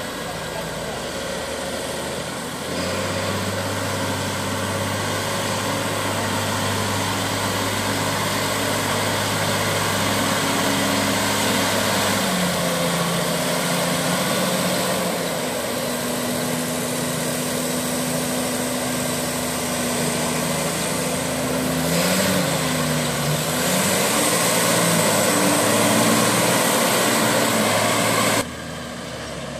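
Valtra T191 tractor's six-cylinder diesel engine running steadily under load while working wet paddy mud, its note shifting up and down a few times. The sound drops abruptly near the end.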